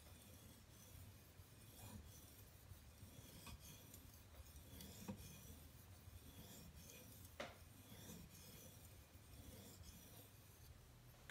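Faint scraping of an ESEE-3 knife blade stroked back and forth across a fine-grit Japanese water stone, polishing the edge, with a couple of light ticks along the way.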